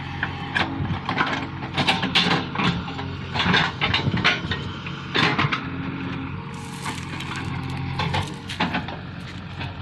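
JCB 3DX backhoe loader's diesel engine running steadily, with repeated sharp cracks and clatters over it, thickest in the first five seconds or so.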